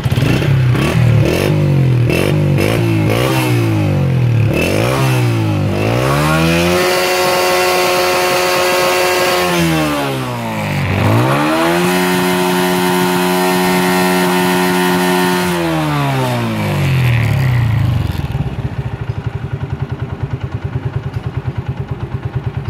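Honda CG 125's single-cylinder four-stroke engine revved with the throttle: several quick blips, then two long revs each held steady for a few seconds before dropping back, settling to a steady idle near the end.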